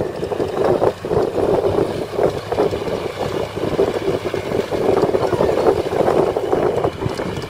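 Diesel engines of heavy earthmoving machinery, a Caterpillar 320B excavator and a crawler bulldozer, running together in a steady drone, with a brief dip about a second in.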